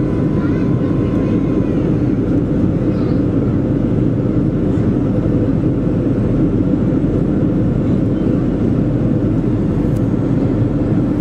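Steady cabin roar of a Boeing 737-400 on approach, its CFM56-3 engines and airflow heard from inside the passenger cabin. A faint high tone fades out in the first two seconds.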